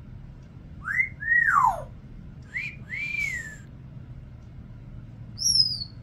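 Congo African grey parrot whistling: two swooping whistles that rise and then fall, then two shorter arched whistles, and a high falling whistle near the end.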